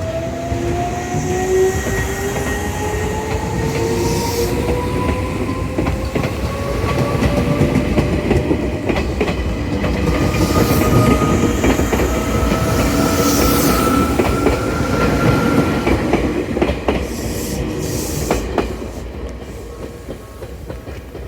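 Izu Kyūkō electric train passing over a level crossing. Its motors give a whine that rises slowly in pitch as the train gathers speed, and the wheels clack over the rail joints. The sound is loudest around the middle and fades near the end.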